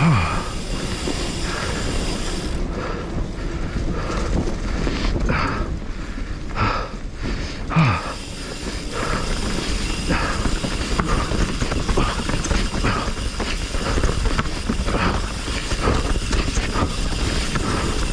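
Commencal Meta HT hardtail mountain bike running downhill over rough trail: a steady rumble of tyres on dirt and rock, with irregular clattering and knocks from the bike over the bumps.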